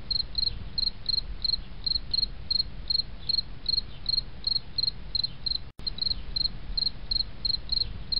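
Cricket chirping: short, evenly spaced high chirps, about three a second, over a low rumble, cutting out for an instant near the end.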